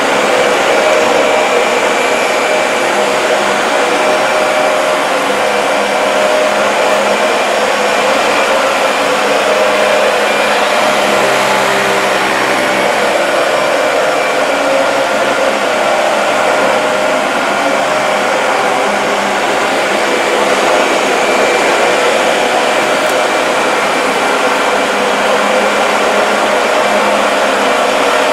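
Dyson DC40 MKII upright vacuum cleaner running steadily as it cleans a rug. It makes a loud, even rush of air with a motor whine, and its lower hum shifts a little around the middle.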